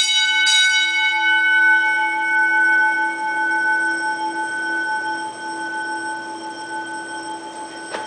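10-inch Autocall single-stroke fire alarm bell striking twice, half a second apart, as the last blows of a round of four in its 4-4-4-4 coded signal. The gong then rings on and slowly dies away.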